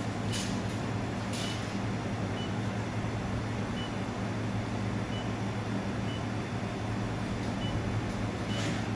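Steady electrical hum and fan noise from a running handheld fiber laser welding machine and its water chiller, with a few faint clicks and an occasional faint short high beep.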